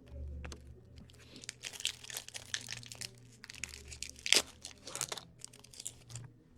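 Foil wrapper of a 2015/16 Upper Deck Series One hockey card pack being torn open and crinkled by hand, a run of irregular crackles with one louder crackle about four seconds in.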